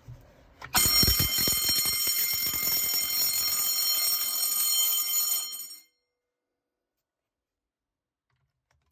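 Sump pump high-water alarm sounding a shrill, steady tone for about five seconds, then cut off abruptly. The alarm is the warning of rising water from a failed sump pump. A few low knocks come under the start of the tone.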